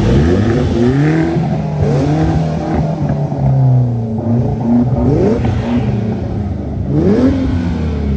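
Sports car engine idling with a steady low note, blipped repeatedly: about five short revs, each rising sharply in pitch and falling back.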